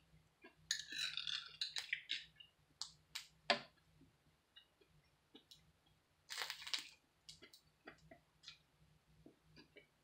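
Close-up eating sounds: a fork clinking and scraping in a glass bowl, with soft chewing and mouth clicks. Two short louder scrapes come about a second in and again around six seconds in.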